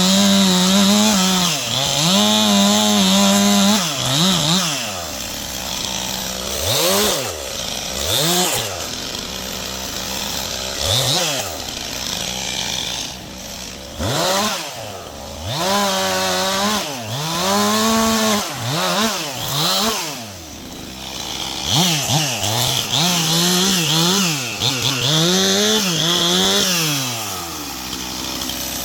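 Stihl MS 291 two-stroke chainsaw cutting oak branches, revved up and held at full throttle for a second or two at a time, then dropping back toward idle, over and over. Near the end it settles to a steady idle.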